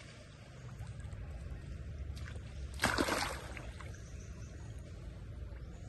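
Water splashing in a swimming pool as monkeys bathe, with one louder splash about three seconds in over a low steady rumble.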